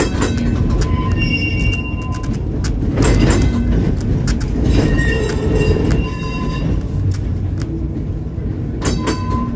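1911 electric tram running, heard from inside the wooden car: a steady low rumble of wheels and running gear, with high metallic ringing tones that come and go three times.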